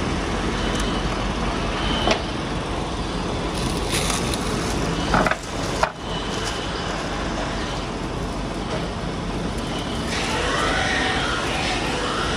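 Handheld electric heat gun blowing a steady hiss while shrinking plastic wrap onto truck brake shoes. A few sharp knocks come about two, four and five seconds in.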